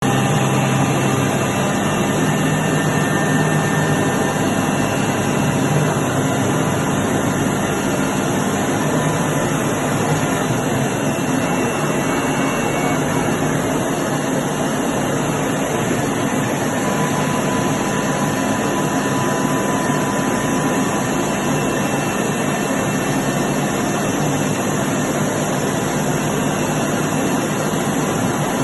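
Router bit milling through plywood, a loud steady machine noise that runs without pause.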